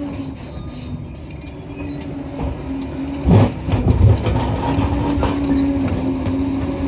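Liebherr PR 746 crawler dozer working: its engine runs steadily under a constant hum while the steel tracks clatter. Two heavy low thumps come a bit past halfway, the second the loudest.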